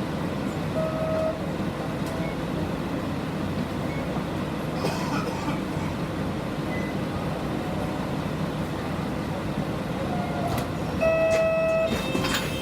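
City bus running, heard inside its cabin: a steady hum of engine and road noise. Near the end a short pitched tone sounds for about a second.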